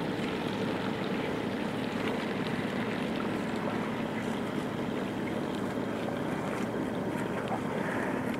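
A small boat's motor running steadily, an even drone that holds without change.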